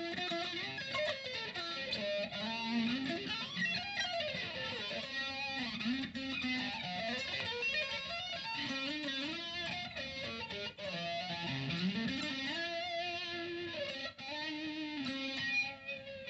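Slightly distorted electric guitar played through a STRICH analog flanger pedal set right on the edge of feeding back, the flanger sweeping up and down through the sustained notes.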